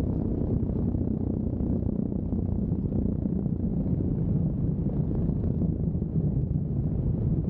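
Biplane engine and propeller running steadily, with wind buffeting the microphone mounted on the upper wing.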